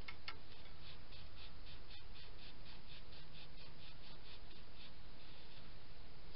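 Rhythmic hand scrubbing of the rusty wheel hub and brake rotor on an old Ford truck, about four scratchy strokes a second, as the rust is cleaned off.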